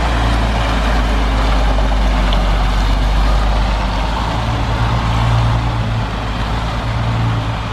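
Diesel engine of a MAN articulated truck running at low revs as the tractor and semi-trailer manoeuvre slowly at close range, a steady low drone that grows a little stronger past the middle as the truck turns toward the listener.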